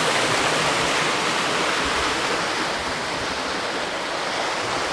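Water rushing steadily through a canal lock's gates, an even loud rush that turns slightly duller about three seconds in.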